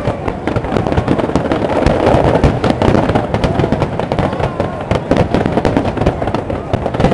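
Firework display: a dense, unbroken barrage of many rapid bangs and crackles.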